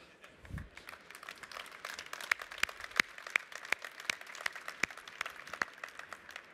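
Audience applauding: a thin spread of separate hand claps that builds up about a second in and thins out near the end.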